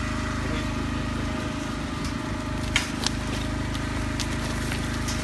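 An engine running steadily at an even pitch, with two short sharp knocks a little past halfway.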